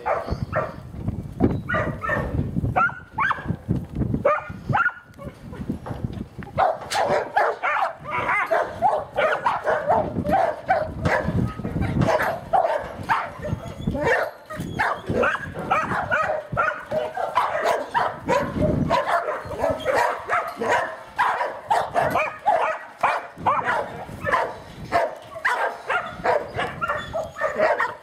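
Dog barking over and over in quick, short barks, several a second, with only brief breaks.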